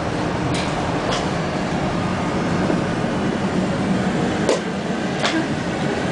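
Steady running noise of a tram heard from inside the passenger car as it moves along the rails, with four sharp clicks.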